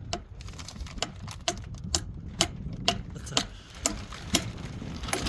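Regular sharp knocks, about two a second, each with a short ring, over a steady low rumble.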